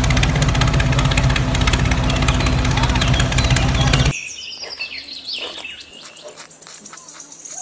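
Tractor engine running steadily, which cuts off suddenly about four seconds in. After it come faint clicks and short squeaky falling chirps.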